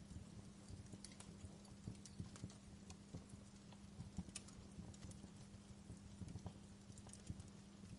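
Campfire wood crackling softly: irregular small pops and snaps over a low rumble, with a faint steady hum underneath.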